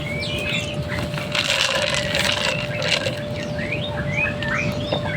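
Many small birds chirping in quick, short notes and little rising and falling whistles, over a steady low hum.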